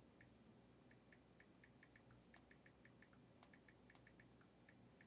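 Faint, irregular clicks of a phone's on-screen keyboard as a text message is typed, several a second with short pauses, and a few sharper taps.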